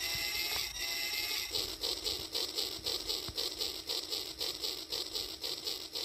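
Toy train running on its track, giving a steady rhythmic chugging of about three beats a second over a low steady hum. A brief pitched, gliding sound comes before the rhythm sets in, about a second and a half in.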